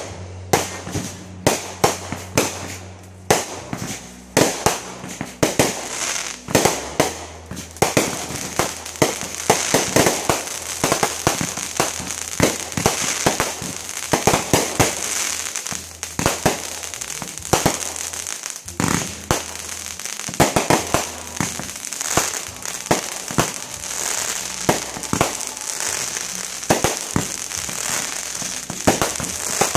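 Aerial fireworks going off: many sharp bangs in quick succession from bursting shells, with a dense crackle from crackling stars that grows heavier after about eight seconds.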